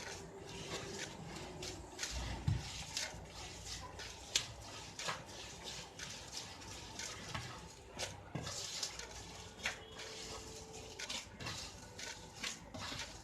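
Batbout bread dough being kneaded by hand in a bowl: irregular soft slaps, squishes and knocks, with a louder thump about two and a half seconds in.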